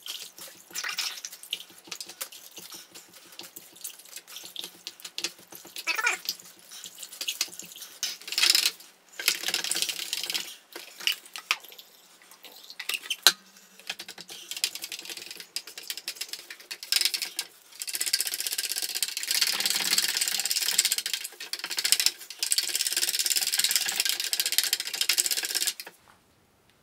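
A stick stirring car paint mixed with hardener and thinner in a metal paint can, scraping and swishing in irregular strokes. Over the last several seconds it stirs steadily, then stops shortly before the end.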